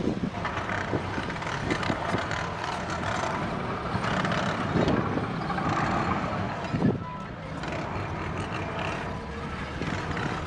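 Construction-site machinery noise: heavy equipment running steadily, with scattered knocks and clanks.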